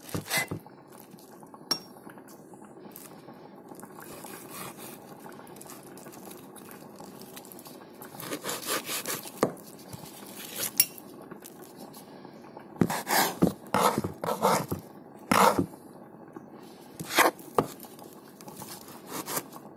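Cutlery clinking and scraping on dishes in scattered clusters of sharp clatters, over a steady low background hum.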